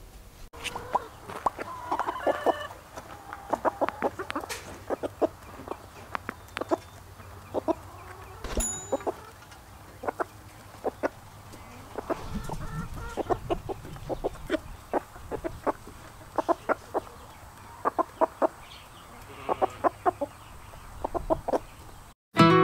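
Hens clucking in short, repeated calls, with one sharper knock a little over a third of the way in.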